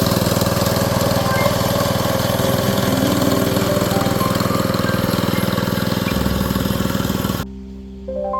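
Construction-machine engine running steadily during a concrete slab pour. It cuts off abruptly near the end, and quiet music with a few sustained notes begins.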